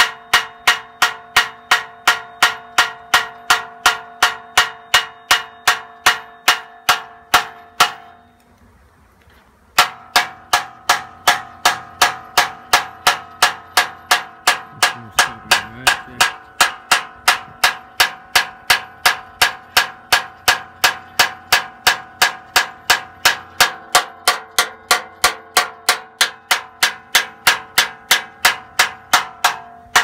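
Metal struck repeatedly against metal to tang a honey bee swarm, the old way of making a swarm settle. The strikes ring and come steadily at about three a second, stop for under two seconds about a quarter of the way in, then resume with a slightly different ring.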